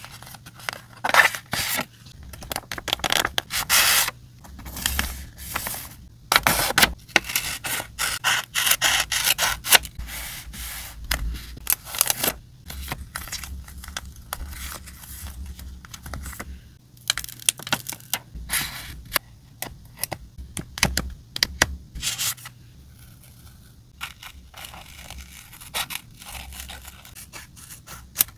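Sheets of printed paper handled close up: rustling, crinkling and sliding against each other in quick, noisy strokes that are dense for the first twelve seconds or so and sparser after that. Scissors cut through paper near the end.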